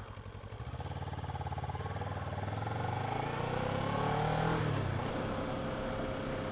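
Kawasaki Ninja 650R parallel-twin motorcycle engine pulling away from low speed. Its pitch rises for a few seconds, then drops about five seconds in and runs steadier, with wind noise on the helmet microphone.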